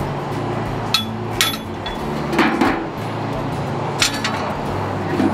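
A metal dustpan being knocked and tipped against a steel bin, giving about five sharp metallic clinks and knocks, with a short rattle of debris a little past the middle.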